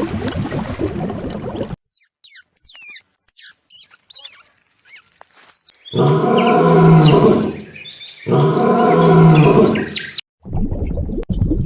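Animal calls: a run of quick, high, squeaky chirps, then two long, low calls of about two seconds each with a short gap between them.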